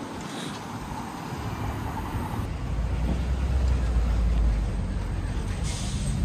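Street traffic: the low rumble of a motor vehicle passing, swelling about halfway through.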